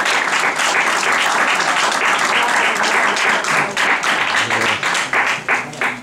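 Small audience applauding, dense clapping that thins out and fades near the end.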